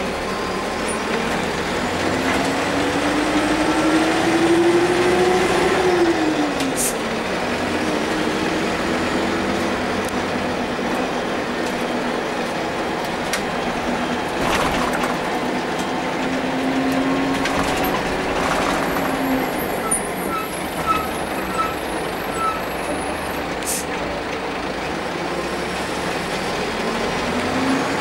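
Karosa C934 bus's Renault MIHR 186 kW diesel engine, heard from inside the passenger cabin while driving: the engine note rises as it pulls, drops sharply at a gear change about six seconds in, pulls steadily again, and eases off near twenty seconds before rising once more at the end. Four short beeps sound about two-thirds of the way through, with occasional knocks and rattles.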